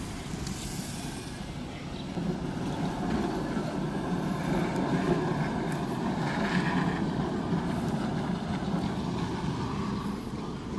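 Heritage tram running past on its rails, growing louder about two seconds in and fading away near the end.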